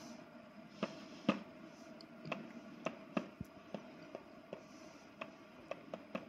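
Faint, irregular clicks, a dozen or so, as a fingertip types a password on the touchscreen keyboard of a Hikvision intercom indoor monitor.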